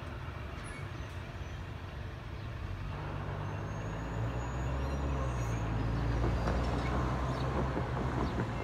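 Low engine drone of a large motor vehicle, growing louder from about three seconds in over steady traffic noise.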